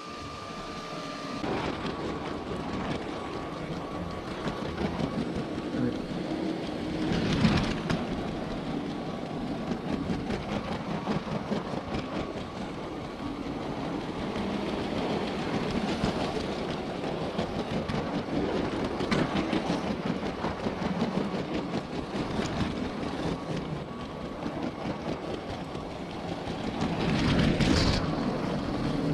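LEGO Horizon Express train running along plastic track: a continuous rumble of the wheels with faint clicks at the track joints, swelling louder a few times.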